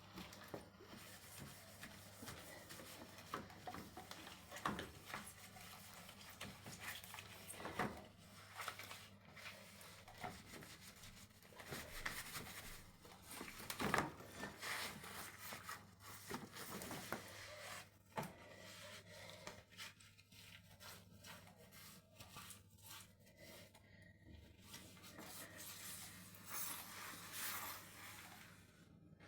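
Rotten wood under a shower tray being scraped, rubbed and pried away by hand, with irregular scraping and several sharp knocks that ease off in the last third.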